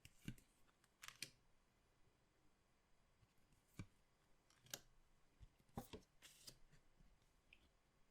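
Faint handling of trading cards and their packaging: about half a dozen soft clicks and taps, spaced irregularly, with a small cluster about six seconds in.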